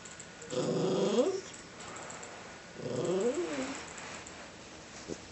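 Two short, pitched animal cries that slide in pitch, each about a second long and about two seconds apart, from a pet in a standoff with another pet.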